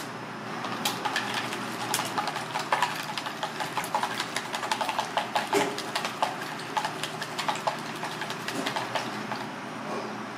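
Wooden chopsticks beating a raw egg in a bowl, clicking rapidly against the bowl's sides. The clicking starts about half a second in and stops shortly before the end.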